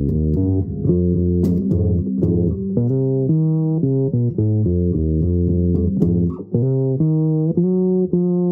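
Fretless four-string electric bass guitar played fingerstyle, a continuous melodic line of plucked notes, some of them sliding into pitch.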